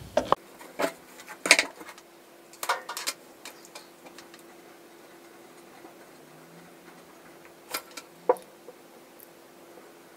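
Scattered light clicks and taps of hair-styling tools being handled, irregular and clustered near the start and again near the end, the loudest about a second and a half in. A faint steady hum runs underneath.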